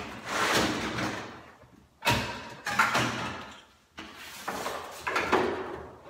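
Rummaging at a workbench: objects being moved, scraped and knocked about in a run of short noisy bursts, several of them starting with a sharp knock.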